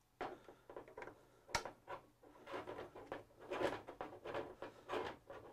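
Scattered light clicks, knocks and rustles of hands unbolting and taking off a carriage wheel on a longarm quilting frame, with one sharp click about one and a half seconds in.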